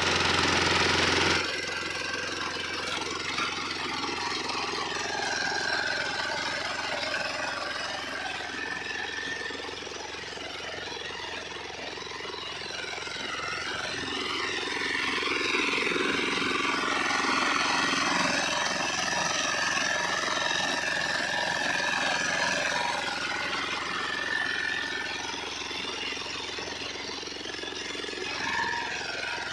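Ride-on reaper binder cutting standing wheat: its small engine runs steadily under the rapid chatter of the reciprocating cutter bar.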